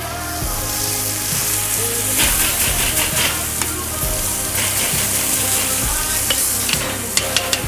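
Picanha steaks sizzling hard on a searing-hot grill plate over charcoal, a steady loud hiss of fat and juices on hot metal. Metal tongs tap and scrape a few times as the pieces are turned and the salt crust is knocked off.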